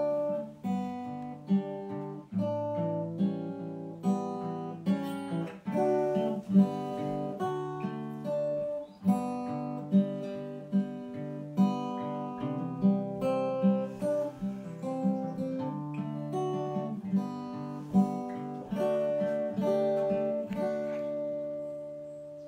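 Acoustic guitar playing a slow piece of plucked chords, ending near the end on a chord that rings and fades away.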